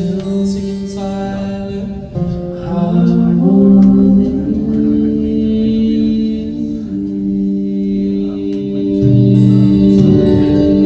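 Recorded music with singing, played back through a pair of floor-standing hi-fi loudspeakers driven by a valve amplifier, heard in the room.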